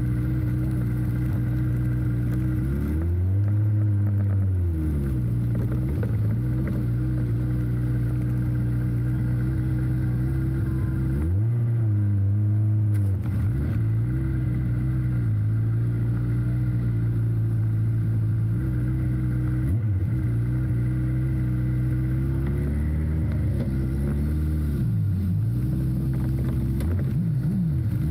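Speedway sidecar's engine idling steadily, with a few brief throttle blips that lift the pitch and let it fall back.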